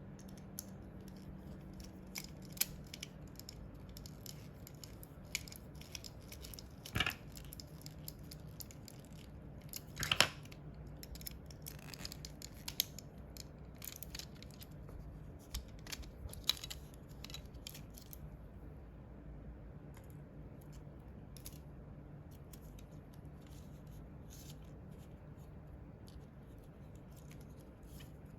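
A computer mouse being handled: scattered small plastic clicks and taps at irregular times, thicker over the first two-thirds and sparser near the end, with a couple of louder knocks. A faint steady low hum runs underneath.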